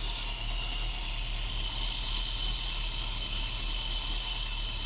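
Freshly rebuilt car engine idling steadily on its first start after the build, with a steady high hiss over a low, even hum.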